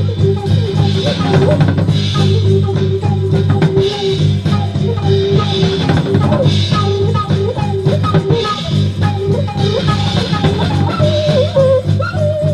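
Background music: a steady drum-kit beat over a sustained bass, with a melody line.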